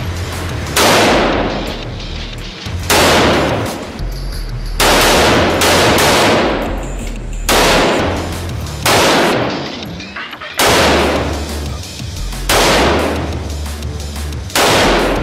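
AK-47 rifle fired semi-automatically: eight single shots about two seconds apart, each a sharp crack followed by a long echo that dies away in the enclosed indoor range.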